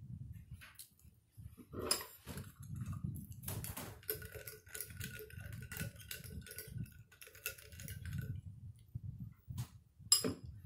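Metal spoon stirring ice in a stemmed glass of juice, clinking rapidly against the glass with a steady ringing tone for a few seconds, with single sharper clinks of glass and utensils before and after. Close-miked chewing and mouth sounds run low underneath.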